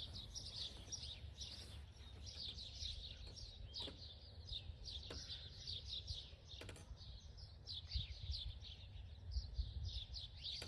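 A flock of small birds chirping busily, many short calls overlapping continuously, over a low steady rumble and a few faint clicks.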